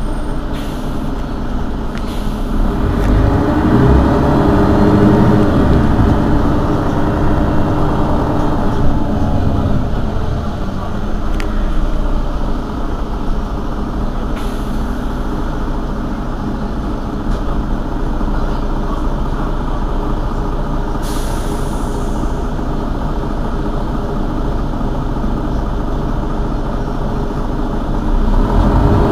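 Mercedes-Benz Citaro city bus's diesel engine idling while the bus stands, a steady drone that swells and rises in pitch once and falls back between about three and eight seconds in. A short hiss of compressed air comes about two-thirds of the way through.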